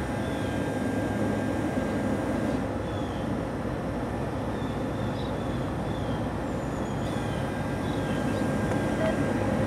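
Approaching diesel locomotive: a steady low rumble that grows slightly louder near the end. Short high chirps sound over it now and then.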